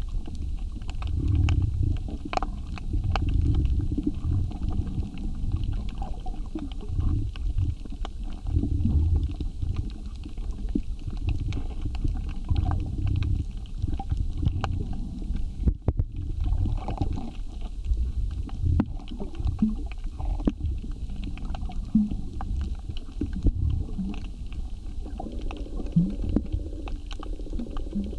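Underwater ambience on a coral reef: an uneven low rumble of moving water with scattered sharp clicks and crackles. A faint steady hum joins near the end.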